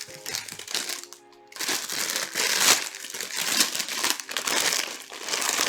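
Packaging crinkling and rustling in loud irregular bursts as the doll's clothes are unwrapped, starting about a second and a half in, over soft background music.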